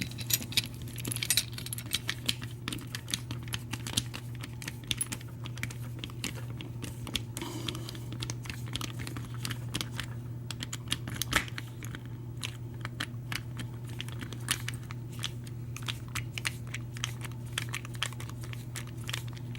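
Irregular small metal clicks and taps of Schlage deadbolt parts being handled and fitted back together by hand, over a steady low hum.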